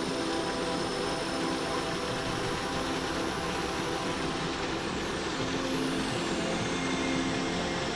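The Höllbach mountain stream rushing steadily as it pours down a small waterfall over granite boulders into a foaming pool.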